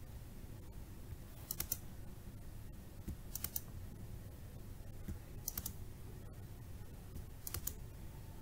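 Computer keyboard keys being pressed: four pairs of short sharp clicks, about two seconds apart, over a low steady background hum.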